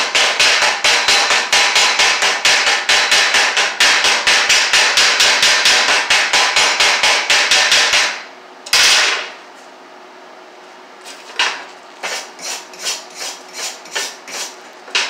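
Chipping hammer knocking slag off a freshly laid stick-weld bead: rapid metal strikes about five a second for some eight seconds, then a short scraping sweep, then lighter, slower taps.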